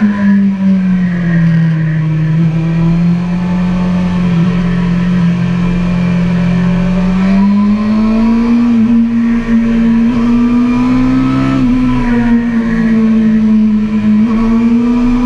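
Sport bike's inline-four engine heard from onboard at track speed, running steadily under load with wind rushing past. Its pitch sags slightly early on, climbs gradually over the middle, and rises again near the end as the bike accelerates.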